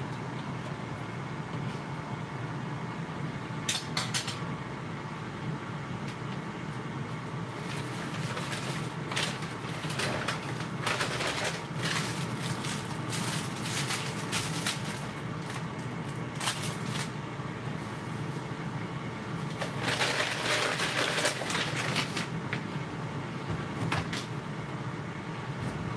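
Kitchen handling noises: intermittent knocks, clicks and clatter, with a longer rustling stretch near the end, over a steady low hum.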